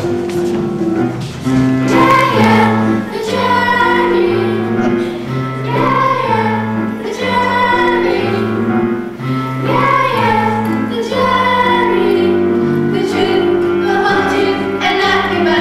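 A children's choir singing a song together over steady instrumental accompaniment, with held notes and phrases that break every second or two.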